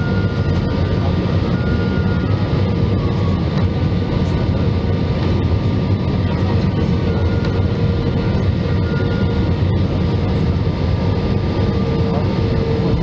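Steady cabin noise of a jet airliner on its landing approach, heard from inside the cabin: a constant low rumble of engines and airflow with a steady hum over it.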